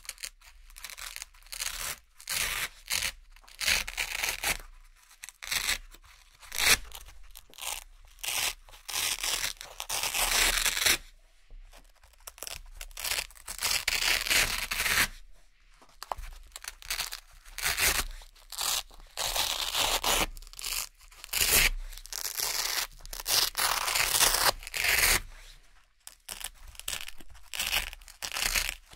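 Round Velcro hook-and-loop patches being peeled off a board one after another: crunchy ripping pulls with short pauses between them, some quick and some drawn out over a second or two.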